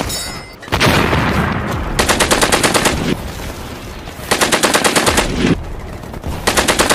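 Machine-gun fire in three rapid bursts of about a second each, over a continuous din of battle noise.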